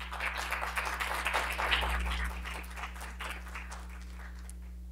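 Audience applauding, dying away about three seconds in, with a steady low electrical hum underneath.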